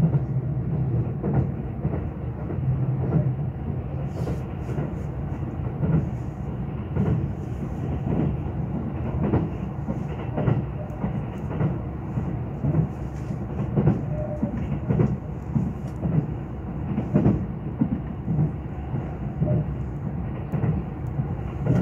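Running noise heard inside the cabin of a Kintetsu 22600-series Ace electric train under way: a steady low rumble with repeated clacks of the wheels over rail joints.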